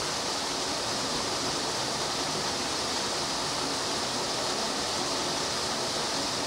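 Steady, even rushing background noise with no distinct sounds standing out.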